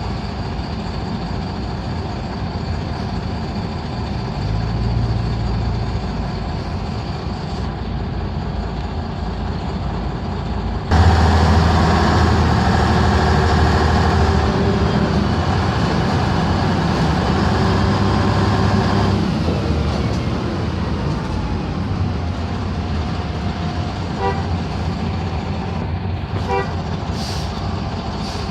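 YaMZ-236 V6 diesel of a LiAZ-5256 city bus running under way. It gets suddenly louder about eleven seconds in as it pulls harder, then eases off and falls in pitch during the second half.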